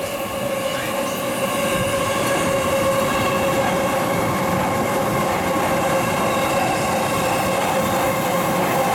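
JR East E233-series electric train on the Chuo Rapid Line passing through the station without stopping. Its running noise of wheels on rails grows over the first couple of seconds as the cars draw level, then holds steady, with several steady ringing tones over it.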